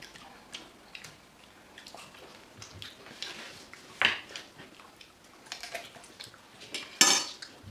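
Eating noises of people chewing and biting fresh fruit at the table: scattered soft smacks and clicks, with a louder noisy burst about four seconds in and a stronger one near the end.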